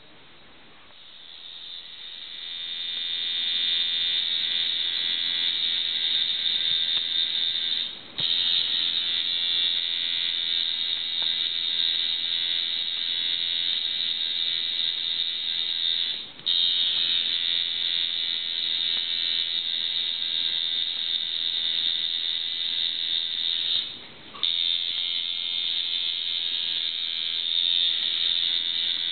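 Electric tattoo machine purring, a steady high buzz as it works. It builds up over the first few seconds and cuts out very briefly three times before running on again.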